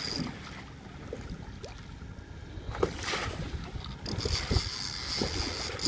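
Wind rumbling on the microphone aboard a small boat idling in neutral, with a few light knocks.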